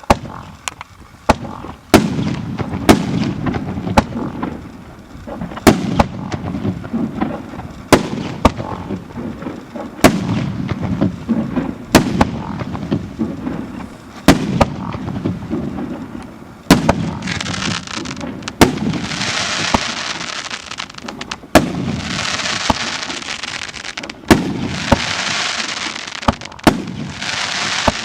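Consumer fireworks battery (JFC 'Gambit' cake) firing shot after shot, a sharp bang about every second. From a little past halfway, each burst is followed by a long crackle.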